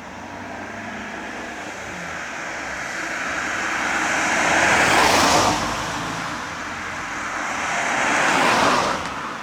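Two road vehicles passing close, one after the other, each a rising then falling rush of tyre and engine noise. The first is loudest about five seconds in and the second just before the end.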